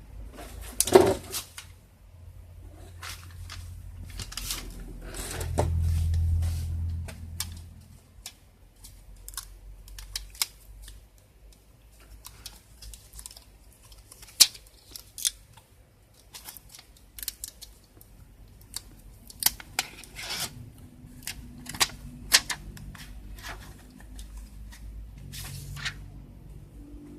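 Laptop casing and parts being handled during disassembly: scattered sharp plastic clicks and taps, with a low rumble of something sliding or being pushed about five to eight seconds in.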